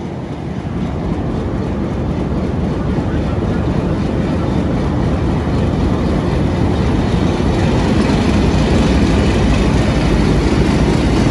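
Diesel-electric locomotive hauling a passenger train past at close range, its engine running loud with a heavy rumble. It grows steadily louder as it comes alongside, with the coaches following behind it.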